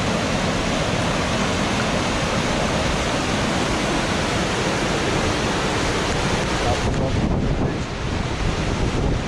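Rain-swollen stream in spate, its water rushing in a loud, steady noise.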